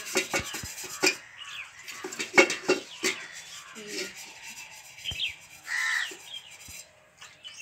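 A hand rubbing the wet, soot-blackened bottom of a metal cooking pot, with scrapes and clinks of metal. The pot was coated with mud before going on the wood-fired chulha, so the soot rinses off without scouring. Birds chirp in the background, and a crow caws once about six seconds in.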